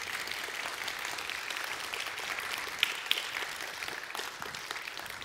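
Audience applauding: dense, steady clapping that starts to fade near the end.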